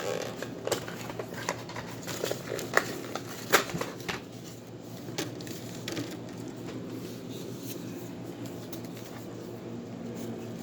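Plastic toy packaging being handled and crinkled, with several sharp clicks and crackles in the first few seconds, then softer, quieter rustling.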